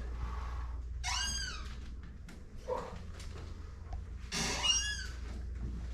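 Chiropractic treatment table squeaking as it flexes under a patient: two long squeals about three seconds apart, each rising then falling in pitch, with a short lower squeak between them. It is a dry squeak from a table that wants oil.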